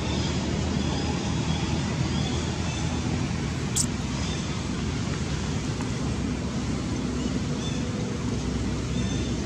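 Steady outdoor background noise, a low rumble with a hiss above it, with a single sharp click a little under four seconds in.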